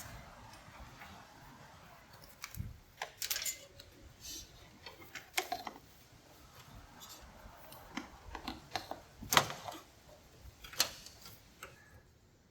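Scattered light clicks and small metallic rattles of parts and tools being handled while an air line is routed, with a few sharper clicks near the end.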